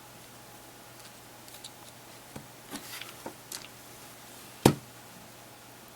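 Tiny screws and a small screwdriver clicking and tapping against a media player's plastic housing as the screws are reinstalled, with one sharper knock about three-quarters of the way in.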